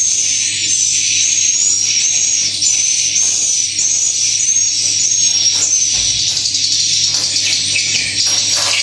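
Many swiftlets chirping together, a dense, continuous high-pitched twittering, with a faint steady hum beneath.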